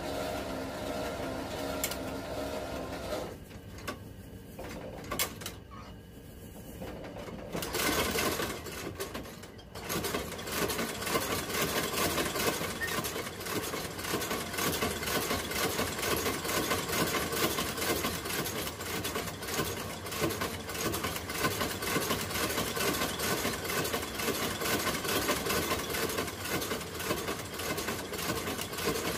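Sole-stitching machine running, driving stitches through the leather sole in a fast, even rhythm. It stops about three seconds in, with a few knocks during the pause, then starts again about ten seconds in and runs steadily.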